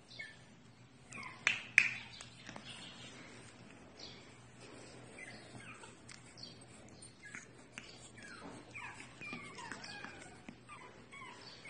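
Pug whining in many short, high, falling squeaks, with one louder sharp squeak about two seconds in.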